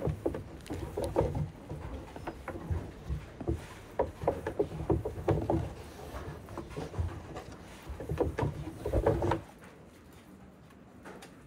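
Hands rolling and pressing a rope of buttered dough on a round wooden board: soft rubbing with irregular light knocks and creaks of the board, stopping about nine seconds in.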